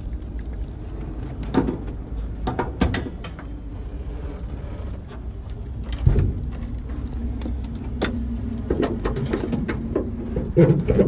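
Bonnet of a Toyota Innova being unlatched and raised: a few sharp metallic clicks and knocks, then a heavier thump about six seconds in, over a steady low rumble.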